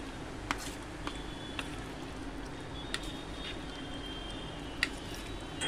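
A metal spoon stirring chicken pieces in thick wet masala marinade on a ceramic plate. It gives a handful of sharp clinks against the plate over a steady low hum.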